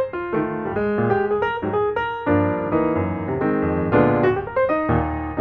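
Background piano music: a continuous run of struck notes over sustained chords.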